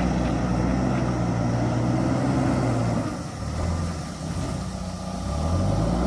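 JCB backhoe loader's diesel engine working under load, running hard, easing off about three seconds in and picking up again near the end.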